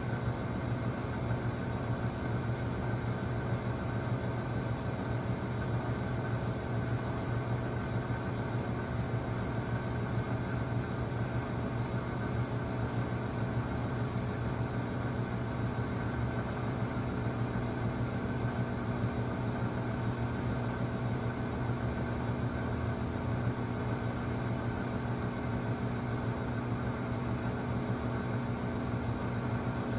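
Samsung WW25B6900AW front-load washer giving off a loud, steady buzz with a low hum and its overtone, unchanging throughout. The owner hears this louder buzz when the drain pump runs with no water left to drain, and takes it for a fault.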